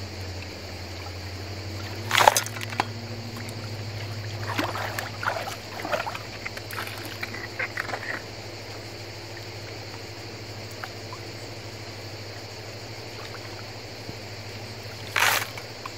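River water sloshing and trickling as gravel is dug from the shallow riverbed with a small shovel and worked in gold pans, with two louder sudden noises, about two seconds in and near the end. A steady insect buzz runs behind.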